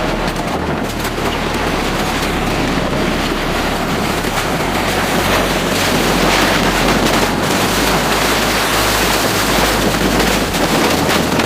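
Violent wind from an approaching tornado blasting over the microphone: a loud, steady rushing noise with heavy low buffeting, getting a little louder about halfway through.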